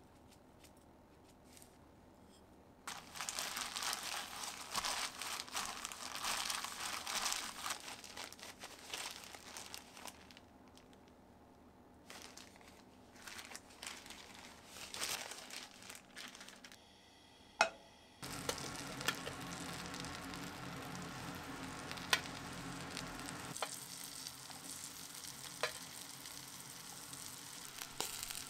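Food frying in a pan, sizzling and crackling. The crackle is dense for several seconds after a quiet start, thins out, and after a sharp knock becomes a steadier sizzle.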